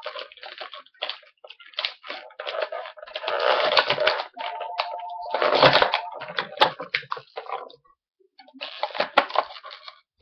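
Plastic toy packaging being handled and pulled apart: irregular crinkling, crackling and sharp clicks as an action figure is freed from its hard plastic shell and tray.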